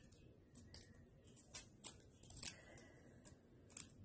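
Faint handling sounds of a delicate necklace being worked in the fingers: a scattering of small, sharp clicks and ticks, about six of them, over quiet room tone.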